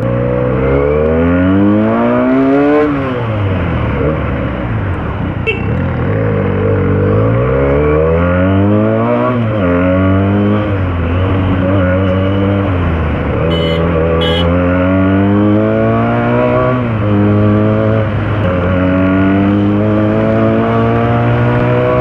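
Benelli TNT 300's 300 cc parallel-twin engine accelerating through the gears. The pitch climbs, falls back sharply at each upshift and climbs again, four times over. It then rises slowly at a steadier pace near the end.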